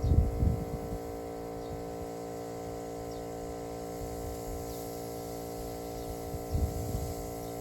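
Steady, even hum of a garden pesticide sprayer's small pump motor running. Low rumbles of handling or wind on the microphone come at the start and again near the end.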